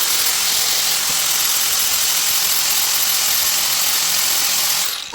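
Power grinder with a coarse 60-grit pad sanding down a lip and braze blob on a metal exhaust tube, a steady loud hiss that stops shortly before the end.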